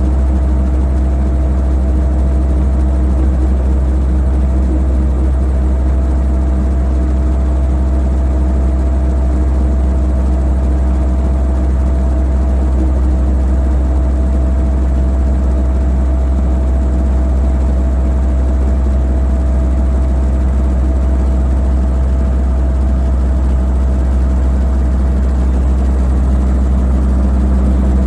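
Steady, loud low engine drone holding one constant pitch throughout, like an engine idling close by.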